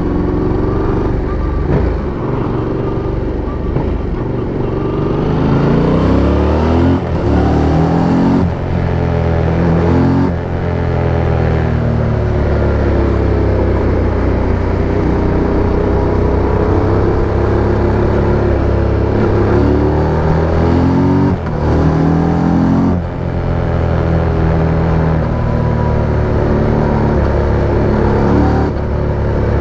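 Yamaha MT-07's 689 cc parallel-twin engine and exhaust under way: the pitch climbs as it accelerates and drops sharply at each gear change, several times, with steadier cruising in between.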